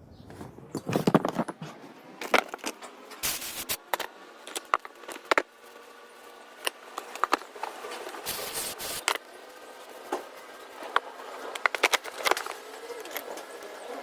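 Irregular metallic clicks, clinks and knocks of tools and starter-motor parts being handled, spaced unevenly, over a faint steady hum.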